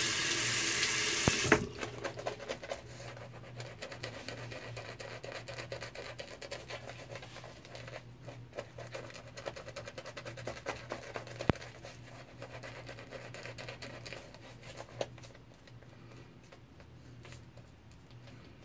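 A tap runs briefly at the start. Then a Semogue 620 boar-bristle shaving brush works lather over a stubbly cheek, making a fast, continuous scratchy swishing that grows quieter near the end.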